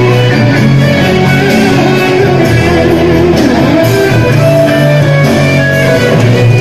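Instrumental passage of a pop-rock song, guitar to the fore, played loudly through PA speakers.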